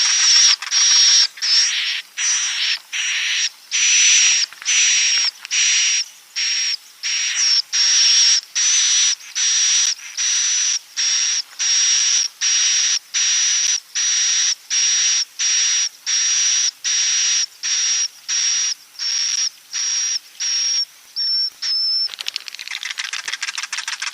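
Swiftlet roosting call ('suara inap walet'), the lure sound played in swiftlet houses to draw the birds in to roost: rasping, hissy chirps repeated evenly about twice a second. About two seconds before the end it changes to a fast run of fine clicks.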